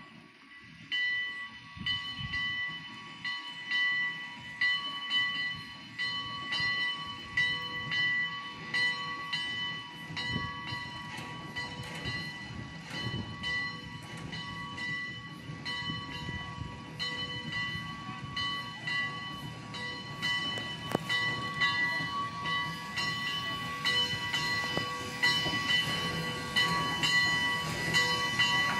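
Heisler geared steam locomotive approaching with its bell ringing, struck over and over at a steady pace, over a low rumble of the engine and train that grows louder near the end.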